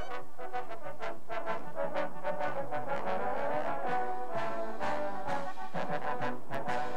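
Drum and bugle corps playing: massed brass bugles sounding held chords over frequent drum strokes.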